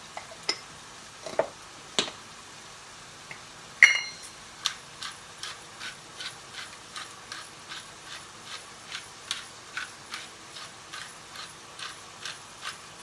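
A utensil working ground beef in a frying pan while it browns: a few scattered clicks, one loud metallic clink that rings briefly about four seconds in, then a steady run of light taps at about three a second.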